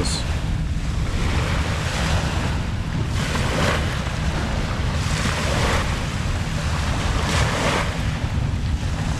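Sea waves washing onto the shore, swelling about every two seconds, with wind rumbling on the microphone.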